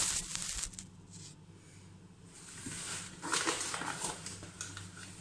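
Rustling and scraping handling noises in two bursts, the second about halfway through and stronger, over a steady low hum.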